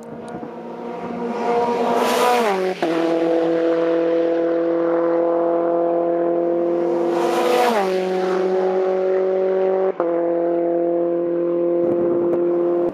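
Formula 4 single-seater race cars passing close at speed on the pit straight. The high, steady engine note drops sharply in pitch with a rush of noise as a car goes by, twice, about two and a half and seven and a half seconds in.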